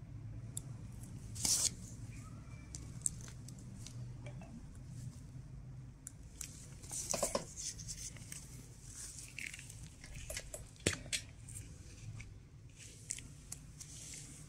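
Scalpel blade scraping crumbly debris off a thickened fungal toenail: short, scattered scrapes and clicks, a few louder ones, with glove rustling. A low steady hum runs underneath.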